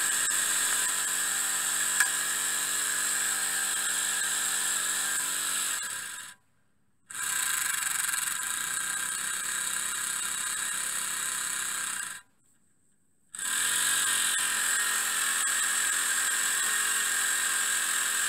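Miniature three-cylinder steam engine running fast with a steady high whir and hiss. The sound twice cuts out for about a second. After the second break the engine's pitch rises as it picks up speed.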